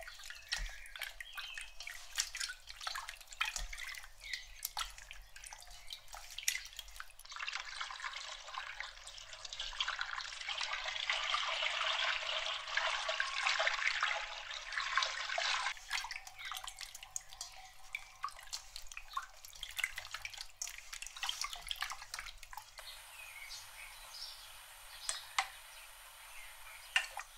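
Raw chicken drumsticks being rinsed by hand in a stainless steel bowl of water: splashing and dripping, then tap water running steadily into the bowl for about eight seconds, then more splashing. The last few seconds are quieter.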